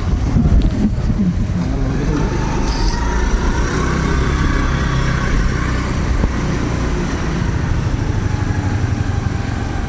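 Motor scooter ride heard from the seat: a steady low rumble of wind and road noise as the scooter rolls slowly along.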